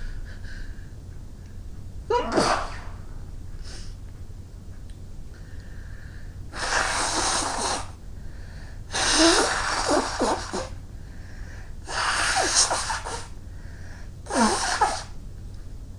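A woman sneezing several times in a row: one short, sharp sneeze about two seconds in, then a run of four louder, longer sneezes in the second half.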